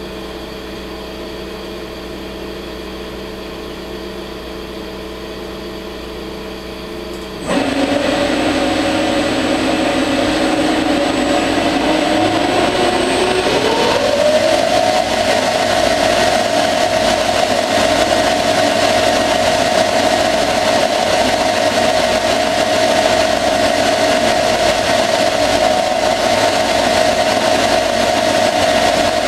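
CNC lathe running. At first it gives a steady hum; then about a third of the way in the sound jumps sharply louder as the spindle starts and coolant begins spraying. The spindle whine rises in pitch a few seconds later and then holds steady over the hiss of the coolant.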